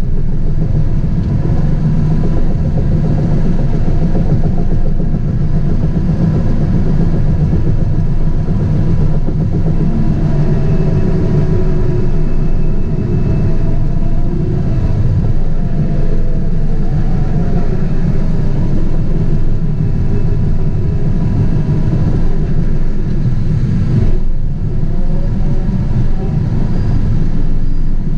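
Caterpillar 973C track loader's diesel engine running steadily while the machine works, heard from inside the cab, with a faint wavering whine over the low drone.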